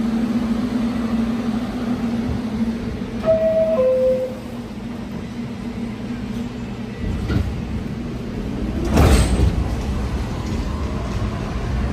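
A Staten Island Railway R44 subway train standing at a platform, humming steadily. Its two-tone door-closing chime sounds, a higher note then a lower one, about 3 seconds in. About 7 seconds in, the train's motors begin a low rumble as it starts to move, with a short loud rush of noise about 9 seconds in.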